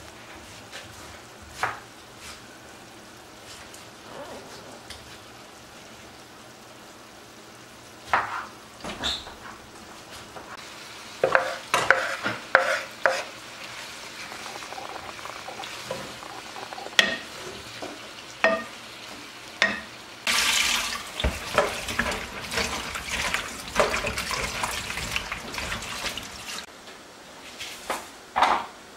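Scattered knife clicks and taps on a wooden cutting board. Then, about two-thirds of the way through, a stretch of loud sizzling lasting several seconds as cabbage, onion and tomato fry in a non-stick pan and are stirred with a spatula. A few more taps follow near the end.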